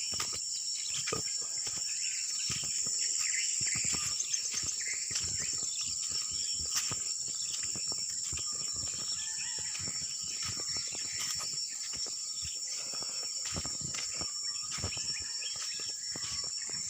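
Steady high-pitched insect chorus ringing on two close pitches, with scattered clicks and rustles.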